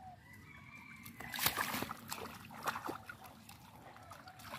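Hands squelching and splashing in wet, waterlogged mud while digging out a fish, a few sharp wet slaps among softer sloshing; the loudest slap comes about a second and a half in.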